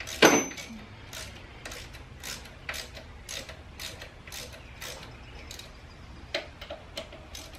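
Ratchet wrench on a socket extension clicking in short repeated strokes, about two to three clicks a second, as a bolt is turned during the AC compressor refit. A loud metal clank comes about a quarter second in.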